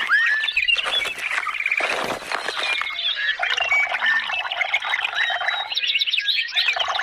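A dense chorus of many birds chirping and trilling at once, with quick falling whistles overlapping throughout.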